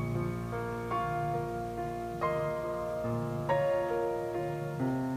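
Background piano music: gentle, slow notes and chords.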